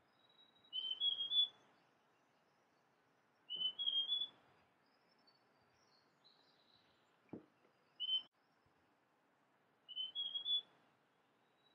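Male large niltava (Niltava grandis) singing: short phrases of three or four clear whistled notes that step upward in pitch, repeated about every three seconds, with a single note in between.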